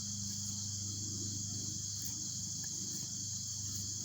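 Steady, high-pitched insect chorus, with a low steady hum underneath.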